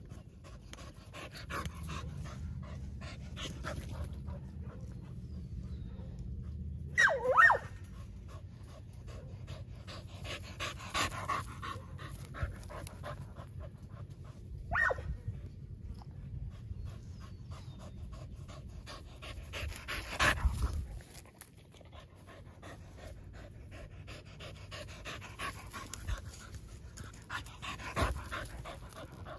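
Dogs panting close to the microphone as they sniff around, with rustling through grass. There are two short high squeals about seven seconds in and another near fifteen seconds, and a heavy knock on the microphone a little after twenty seconds.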